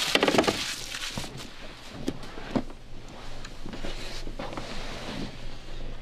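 Rustling and creaking of a person shifting position on a padded vinyl chiropractic table, loudest in the first half-second, then scattered small clicks and knocks as she settles.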